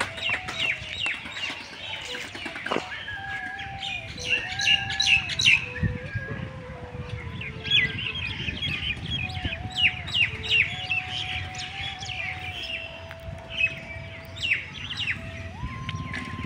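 Birds chirping again and again with short, quick calls. Underneath runs a thin melody of held notes that step up and down in pitch.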